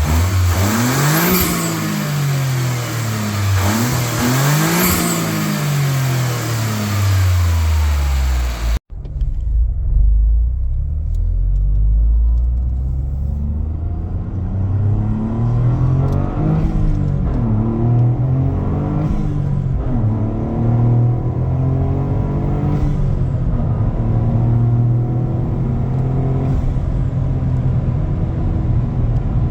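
Toyota GR Corolla's turbocharged 1.6-litre three-cylinder engine, revved up and back down twice with a hiss rising along with the revs. After an abrupt cut about nine seconds in, the car is driven hard: the engine pitch climbs and falls again and again through gear changes, then settles into a steadier run near the end.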